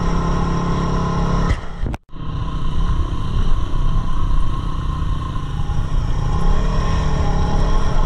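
Yamaha WR250R dual-sport motorcycle's single-cylinder four-stroke engine running while riding. The sound drops out abruptly for a moment about two seconds in, then carries on steadily.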